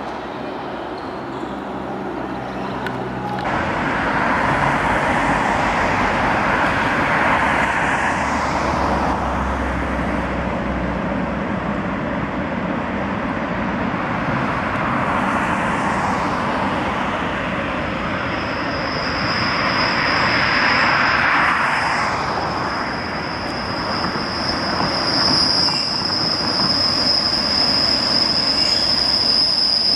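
Suburban train running on the rails with a steady rushing noise that grows louder a few seconds in, then a high, steady wheel squeal that sets in a little past halfway and holds.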